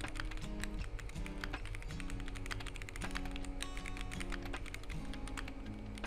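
Fast, continuous typing on a Monsgeek M1 mechanical keyboard with ASA-profile PBT keycaps and a POM plate: a dense run of keystroke clacks, several a second. Background music plays underneath.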